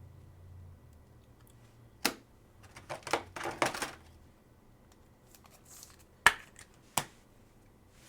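Trading cards being handled on a table: a sharp click about two seconds in, a short burst of rustling and sliding, then two more sharp clicks near the end.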